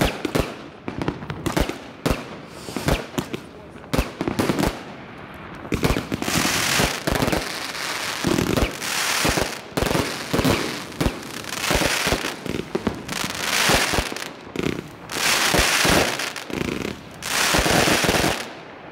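Mascletà-style firecracker display: a quick run of separate sharp bangs, then from about six seconds in dense rolling volleys of firecrackers and fireworks bursts, one after another, stopping abruptly near the end.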